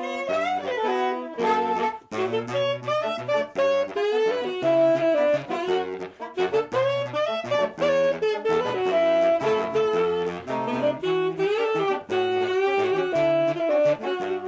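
A saxophone quartet playing a song arrangement, several saxophones sounding together in harmony with a low bass line under the melody.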